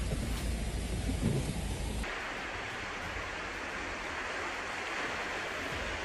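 Rain and a low road rumble heard from inside a moving car's cabin. About two seconds in there is an abrupt change to a steady wash of rough sea breaking on rocks.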